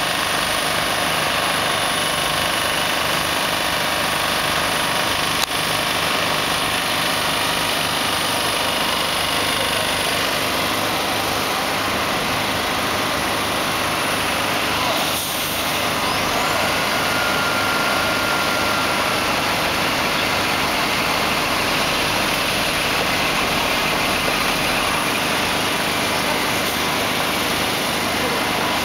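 Diesel engine of a heavy-haulage truck running steadily at low revs.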